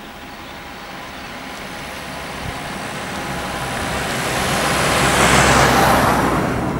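A motor vehicle approaching on the road, its engine hum and tyre noise growing steadily louder to a peak about five to six seconds in, then easing off slightly.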